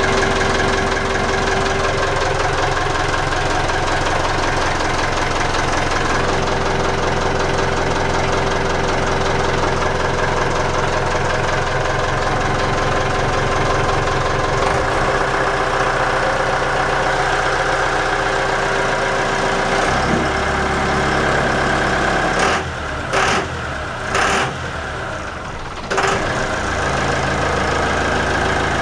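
Inboard diesel engine of a Yamaha DY29 boat idling steadily, heard from the open engine bay. About three-quarters of the way through, the sound drops for a few seconds and is broken by a few short knocks.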